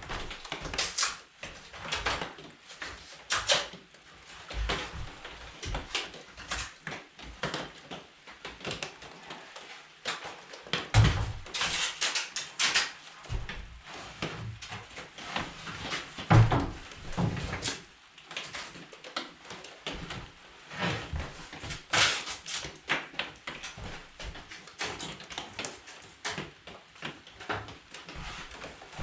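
Irregular knocks, clunks and clatter from hand work, with a few heavier thumps about eleven and sixteen seconds in.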